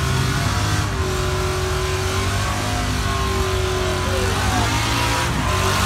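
Car engine held at high revs during a tyre burnout, running steadily with no let-up while the rear wheels spin.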